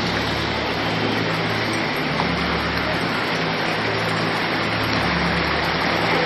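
Rushing water of a stream flowing down from a waterfall, a steady even hiss.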